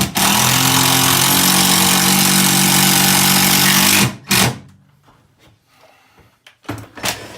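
Power drill driving a screw, running steadily for about four seconds and then giving a short second burst, followed by a few light knocks.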